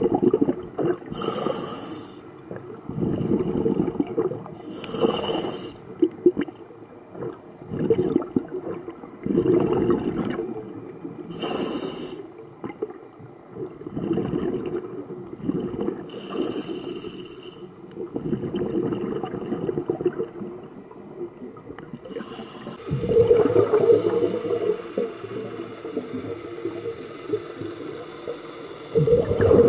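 A scuba diver breathing through a regulator underwater, picked up through a camera housing: a breath in and out every few seconds, with bubbling and hiss on each breath, and one longer, louder breath about two-thirds of the way in.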